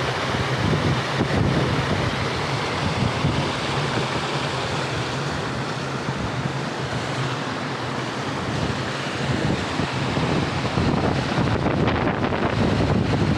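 Steady rushing of a hill stream's running water, mixed with wind buffeting the microphone.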